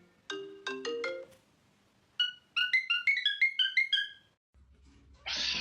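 Short ringtone-like electronic melody: a few lower notes, then a quick run of higher, bright notes. A burst of room noise cuts in near the end.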